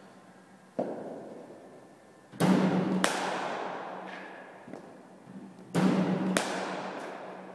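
Sharp cracks of cricket ball impacts: a lighter one about a second in, then two pairs, each two cracks about 0.6 s apart. Each crack rings out in the long echo of an indoor sports hall.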